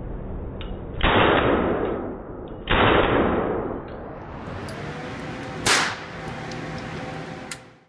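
Rifle shots echoing in an indoor firing range: two loud shots about a second and a half apart, each with a long echo, then a shorter, sharper bang about two-thirds of the way through, with faint clicks between.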